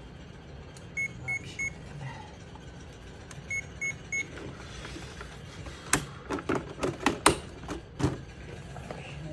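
RC car's electronics beeping on one high tone, two sets of three quick beeps, as when the battery is connected and the speed controller starts up. About six seconds in comes a quick run of plastic clicks and knocks as the car is handled.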